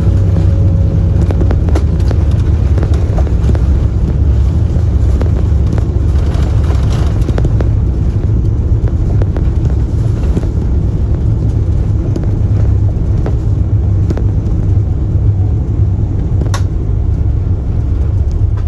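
Steady, loud low rumble of a moving vehicle heard from inside, with scattered small clicks and knocks and one sharper click near the end.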